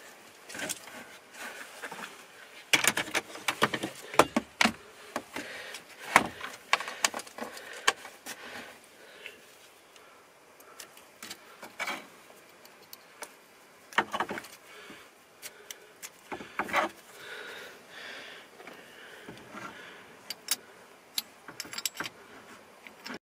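Irregular clicks, rattles and clatters of a truck's column-shift gear selector assembly, a metal shifter housing with plastic parts, being handled and fitted by hand, coming in clusters with short quiet gaps.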